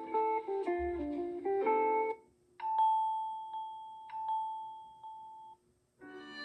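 Samsung Galaxy A33 5G ringtones: a plucked, guitar-like melody ends about two seconds in, then a single long chime tone with a few soft clicks fades away, and a new ringtone with violin-like strings starts near the end.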